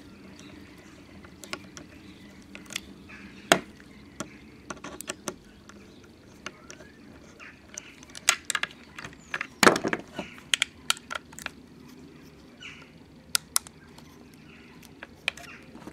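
Screwdriver working the front-sight screw of an old air pistol: scattered small metal clicks and taps, with two louder knocks, one a few seconds in and one a little past the middle.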